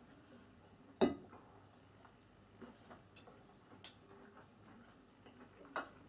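Metal knife and fork clinking and tapping on a dinner plate while food is cut and picked up. There are a handful of short sharp clicks, the loudest about a second in.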